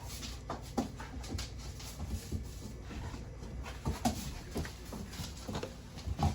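Pet dogs whimpering briefly amid scattered short clicks and rustles of household noise.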